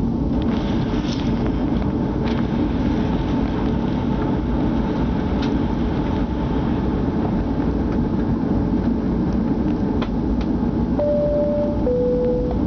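Steady rumble of an airliner's cabin as the plane taxis, with the jet engines at idle. About eleven seconds in, a clear two-note tone starts, alternating high and low.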